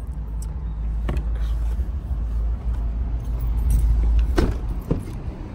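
Steady low rumble with several sharp clicks and knocks of keys and a car door being handled at a parked car, the loudest a little over four seconds in.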